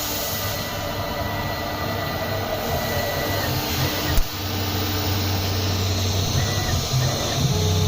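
CNC router running while processing cardboard: a steady mechanical hum with faint high steady tones, and one sharp click about four seconds in.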